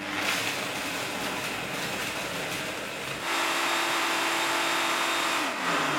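Optimum 9900 high-speed blender running, blending ice and blueberries into a smoothie. About three seconds in it speeds up to a louder, steady whine, and near the end its pitch falls.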